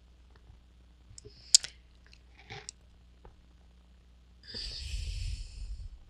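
Faint mouth clicks and lip smacks, then a breath of about a second and a half near the end, blowing onto a headset's boom microphone.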